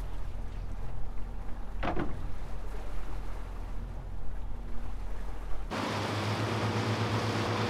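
Fishing boat engine running steadily with a low hum, and a single short sharp sound about two seconds in. About two-thirds of the way through, the sound cuts abruptly to a louder, closer mix of engine drone and rushing water and wind as the boat moves along.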